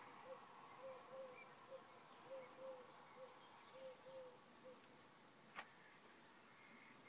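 Near silence with faint short chirps at one pitch, about two a second and often in pairs, that stop after about five seconds, then a single sharp click.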